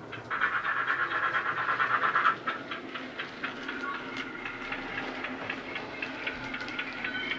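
Sound-fitted Bachmann 45XX Prairie tank model, its Loksound 5 micro decoder playing a Jamie Goodman GWR steam sound through a small sugarcube speaker: a steady chuff, about four beats a second. A loud high-pitched blast lasting about two seconds sounds just after the start.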